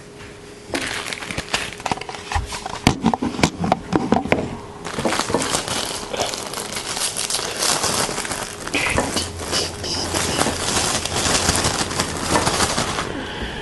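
Crinkling and rustling of food packaging being handled, with a run of light clicks and knocks in the first few seconds.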